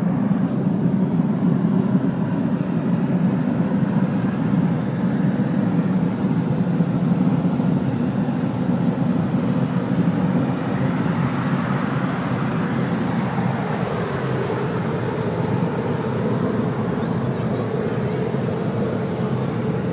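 Loud, steady low rumble from overhead, unseen in low cloud, that sounds like thrusters. A higher hiss swells over it about halfway through, and faint steady tones ride on it after that.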